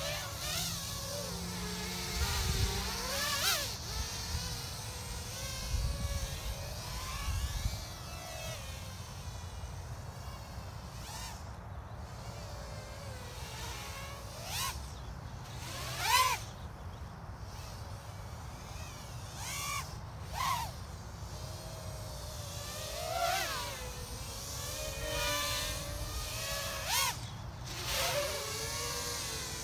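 Small FPV quadcopter with 1105 6000KV brushless motors on a 3S battery and 3-inch 3025 propellers, buzzing as it flies acro, its whine sweeping up and down in pitch with repeated sharp throttle punches, the loudest about halfway through.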